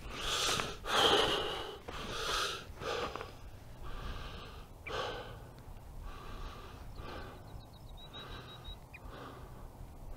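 A person breathing hard from the exertion of hiking uphill, a run of heavy breaths close to the microphone, loudest in the first three seconds and softer after.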